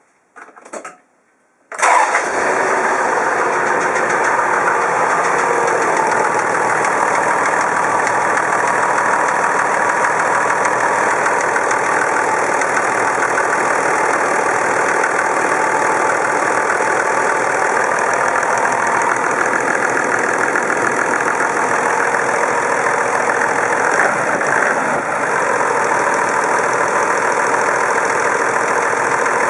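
Toyota Land Cruiser HDJ80's 1HD-T turbodiesel straight-six starting about two seconds in, then idling steadily. The owner hears an irregular rattle somewhere in the engine that he cannot place.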